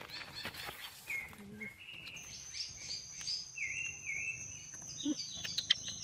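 Small birds chirping in short repeated notes, joined about two seconds in by a steady high insect whine. A single sharp click sounds near the end.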